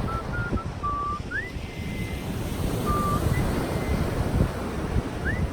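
A person whistling a tune: short, pure notes and upward slides to a high held note, sparse and fairly quiet. Under it, steady wind buffets the microphone and surf washes.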